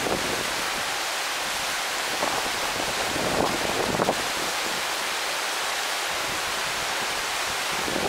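Garden waterfall falling steadily: an even, continuous rush of water.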